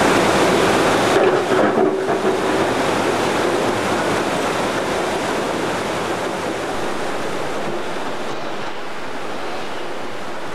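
A steady rushing noise with no distinct events, easing off slightly over the seconds.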